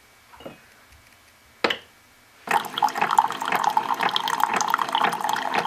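Two light knocks, then water running from a tap about two and a half seconds in, splashing into a vessel for about three seconds before it is shut off.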